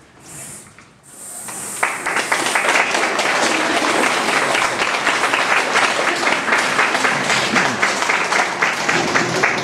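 An audience applauding, starting about two seconds in and carrying on steadily.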